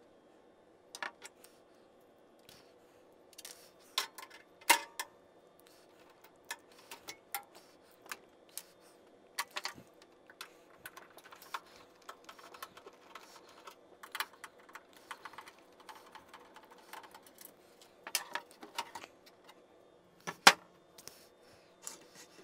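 Irregular metallic clicks, clinks and knocks of tools and metal parts as a microwave oven is taken apart and its components disconnected and removed, with a sharper knock about twenty seconds in.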